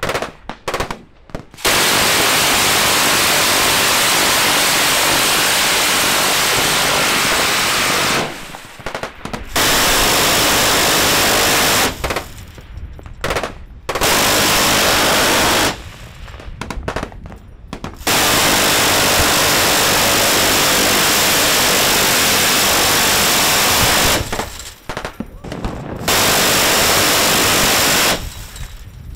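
Quad-mounted M134 Miniguns, 7.62×51mm six-barrel rotary machine guns, firing five long bursts, each a continuous stream of shots too fast to hear one by one, lasting about two to six seconds, with pauses of a second or two between them.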